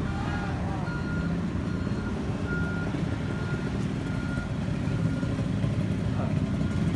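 Heavy vehicle's reversing alarm sounding a string of short single-pitched beeps, over the low, steady running of its engine.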